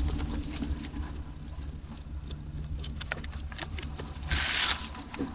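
A vehicle engine idling with a steady low hum, under scattered crunching and scraping in snow, with one brief, louder harsh scrape about four seconds in.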